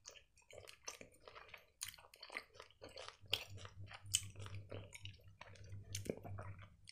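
Close-miked chewing of soft, sugar-coated gummy candy, with a run of irregular wet mouth clicks and smacks.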